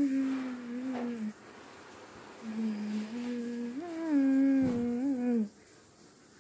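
A person humming in a low voice: one short held phrase that dips at its end, then after a pause a longer phrase that steps up, rises and falls back down.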